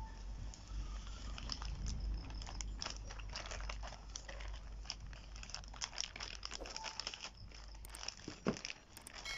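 Plastic courier mailer bag crinkling and rustling in irregular crackles as it is cut open and handled, with one sharper knock near the end.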